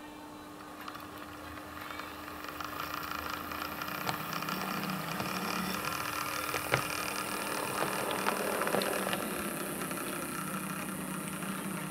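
A 00-gauge model diesel shunter running along the track, its motor and wheel noise growing louder as it passes close and easing off as it runs away, with a few sharp clicks from the wheels over rail joints or points.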